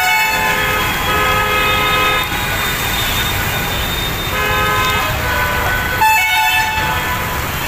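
Car horns honking in traffic: a long blast, then two more a few seconds later, over a steady rushing of floodwater and rain.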